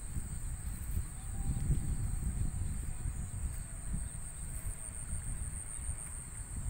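Insects chirring steadily in one continuous high-pitched band, under a low, uneven rumble of handling noise from the hand-held phone.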